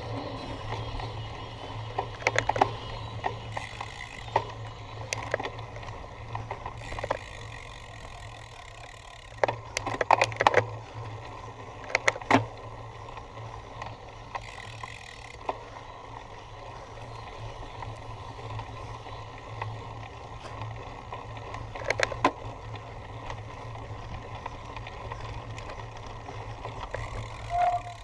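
Cyclocross bicycle being ridden over rough ground: a steady low rumble with sharp clattering knocks from the bike over bumps, in clusters about 2, 10, 12 and 22 seconds in.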